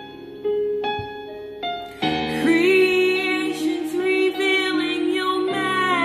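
A few piano chords, then about two seconds in a woman starts singing a slow gospel song with vibrato over keyboard accompaniment.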